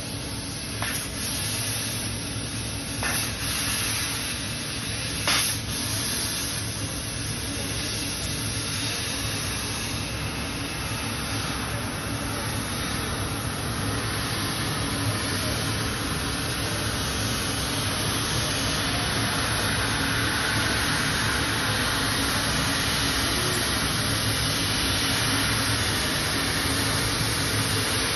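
CNC laser cutter cutting a 4 mm zinc plate: a steady hiss at the cutting head, with a few sharp clicks in the first six seconds.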